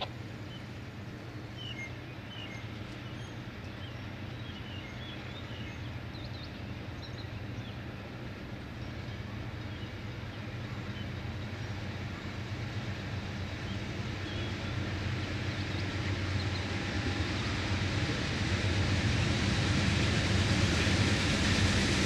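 Two GE P40 diesel locomotives heading a long passenger train approach, their engines running steadily and growing steadily louder, most of all in the last several seconds as the train draws near.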